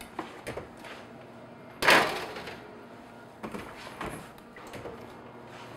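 A wall oven's door and a metal baking sheet being handled as a tray of cookies goes in to bake. Light clicks and knocks, then one loud sharp clunk about two seconds in, then a few more knocks.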